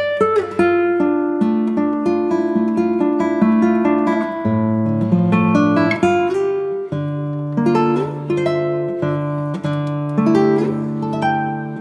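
Background music: an acoustic guitar playing a steady run of picked notes and chords.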